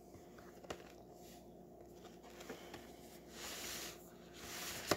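Faint handling of a box set's cardboard packaging: two short swishes in the second half and a sharp tap near the end.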